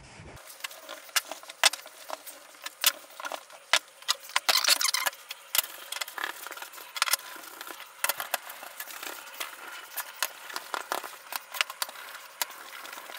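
A cloth being dabbed into a tin of Briwax and rubbed over burnt-wood boards: irregular rustling and scuffing with many small sharp clicks and knocks, busiest a few seconds in.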